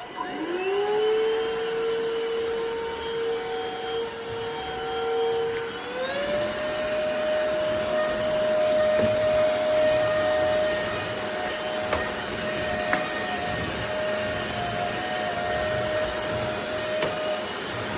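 Stanew 22.2 V 150 W cordless stick vacuum switched on: its motor whine climbs as it spins up and then holds steady. About six seconds in it steps up to a higher pitch as the vacuum goes to its stronger suction mode.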